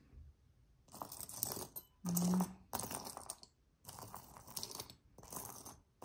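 Small plastic jewelry bags crinkling and rustling in several short bursts as pieces of jewelry are handled, with a brief low hum about two seconds in.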